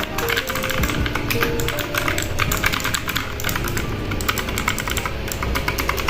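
Leaven K620 mechanical keyboard being typed on: fast, irregular key clicks over background music.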